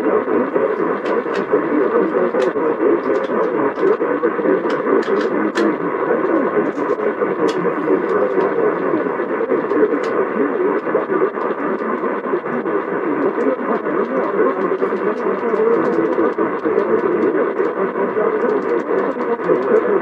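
AM radio reception: a steady wash of static hiss, with sharp crackles scattered through the first half.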